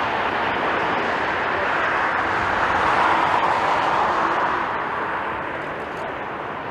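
Jet airliner's engines rushing as it passes, swelling to a peak about halfway and then fading away.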